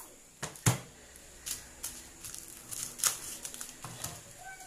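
Garlic cloves crushed under the flat of a large knife on a plastic cutting board: a few sharp knocks of blade and hand on the board, the loudest under a second in and another about three seconds in.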